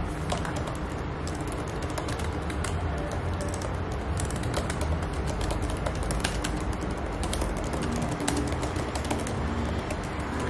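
Fast typing on a MacBook Air laptop keyboard: a dense, uneven patter of light key clicks, over a steady low background hum.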